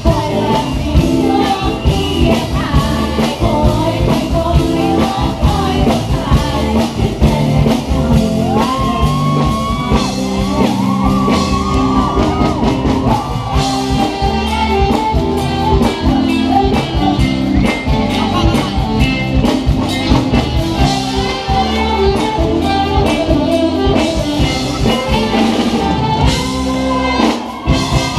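A live band playing, with a singer's melody over a drum kit and guitar.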